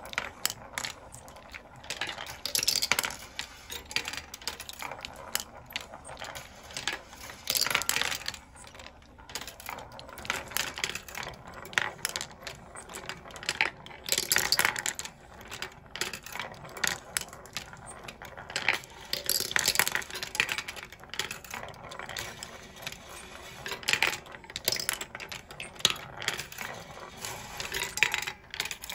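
17 mm glass marbles running through a wooden marble machine: constant clicking and clattering as they roll and drop along wood and bent-wire tracks, with louder bursts of rattling every several seconds.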